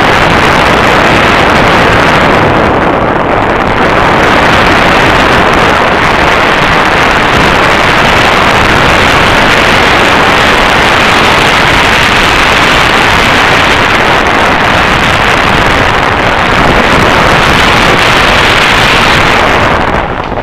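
Loud, steady rush of wind buffeting the microphone of a camera on a mountain bike descending fast, mixed with the rumble of tyres rolling over a dirt trail. The noise drops sharply near the end.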